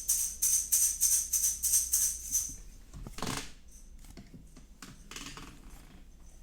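Jingling percussion like a shaken tambourine, in a steady rhythm of about four shakes a second, stopping about two and a half seconds in. A short rush of noise follows, then only faint sounds.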